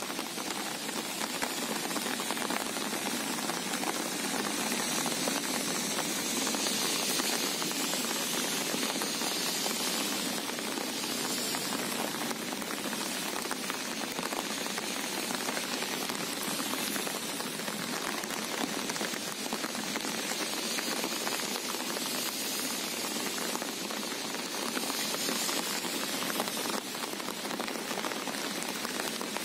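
Steady rain falling on the sea surface, an even, dense hiss of many drops.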